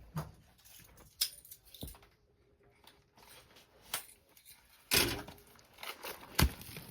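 Handling of PC parts and their packaging: scattered light knocks and clicks, a rustle about five seconds in, and a sharp click near the end.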